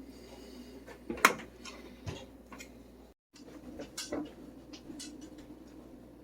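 Kitchen clatter: a few sharp clinks and knocks of dishes, pans and utensils being handled, the loudest about a second in.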